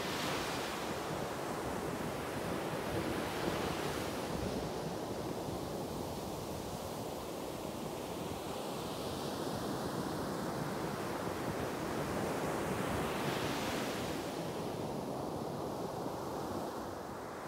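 Ocean surf breaking and washing up a sandy beach, with wind buffeting the microphone. The wash swells at the start and again about three-quarters of the way through.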